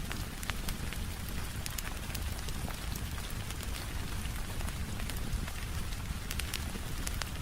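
Steady rain falling, with scattered sharp crackles and pops from a wood fire in a fireplace.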